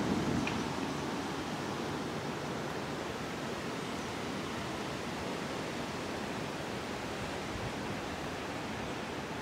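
Steady, even rushing noise of thunderstorm wind, with no distinct gusts, knocks or thunder.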